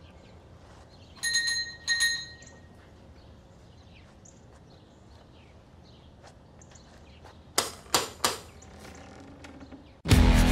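A doorbell chimes twice, a clear two-note ring about a second in, followed by a faint quiet background. Near the end come three sharp knocks, and electric-guitar music starts just before the end.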